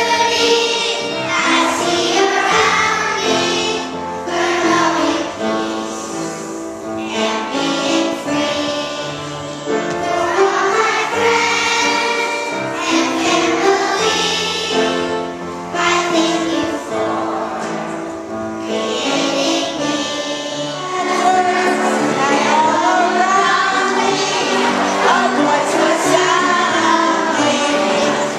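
A group of second-grade children singing a song together as a choir.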